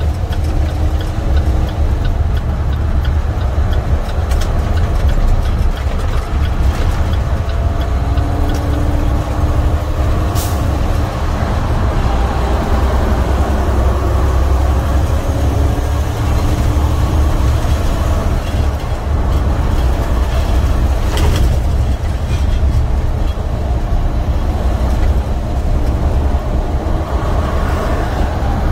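Semi truck's diesel engine and road noise heard from inside the cab while driving: a loud, steady low drone with faint whining tones drifting above it. Two brief clicks come about ten and twenty-one seconds in.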